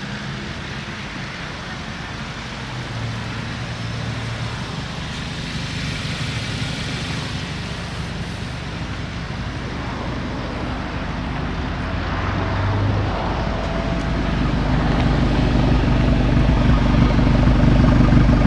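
2017 Audi S3's turbocharged 2.0-litre four-cylinder idling steadily through a catless exhaust, growing gradually louder and deepest near the end.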